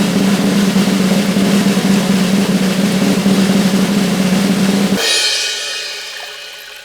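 Snare drum roll with a bass drum tone underneath for about five seconds, cut off suddenly by a cymbal crash that rings and fades away: a classic drum-roll-and-reveal.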